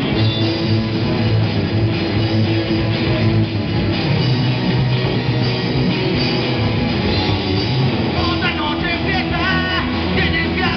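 Live rock band playing electric guitars, bass and drum kit. A voice starts singing over it about eight seconds in.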